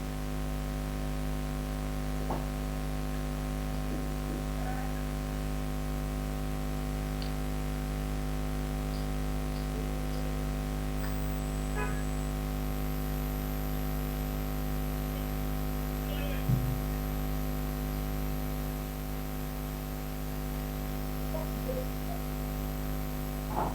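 Steady electrical mains hum made of several constant tones, with a few faint brief sounds now and then.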